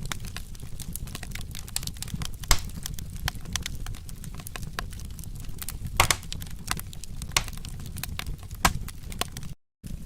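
Wood fire crackling steadily over a low rumble, with a few sharper, louder pops. The sound cuts out for a moment near the end.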